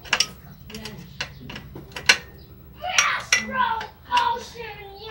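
Irregular sharp metallic clicks and ticks from hand work with a tool on a mountain bike's frame and drivetrain near the crankset, one louder click about two seconds in. A voice talks in the background from about three seconds in.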